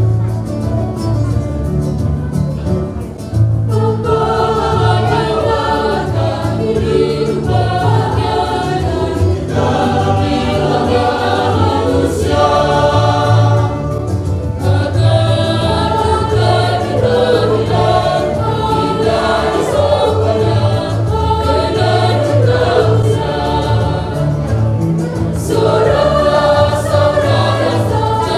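Youth choir of young men and women singing an Easter hymn in Batak Toba style, in Indonesian, over an instrumental accompaniment with a steady bass line; the full choir comes in about three and a half seconds in.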